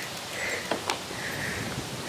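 A person breathing hard while resting after cycling uphill: a few soft breaths about a second apart over steady outdoor background noise, with two faint clicks about a second in.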